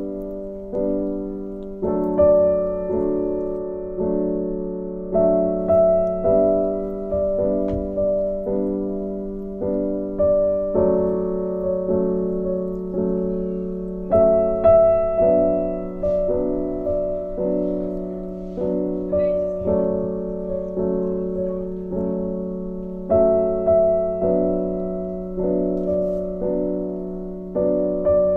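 Background piano music: a gentle melody of struck notes, each one dying away.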